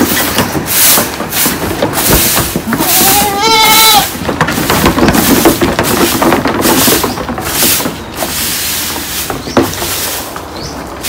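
Long-handled grass broom swishing over wooden planks in repeated strokes, with a goat bleating once about three and a half seconds in.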